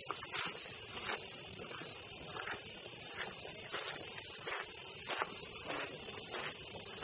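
A steady, high-pitched chorus of cicadas buzzing without a break, the loudest sound throughout. Footsteps on a path at walking pace, about three every two seconds, run under it.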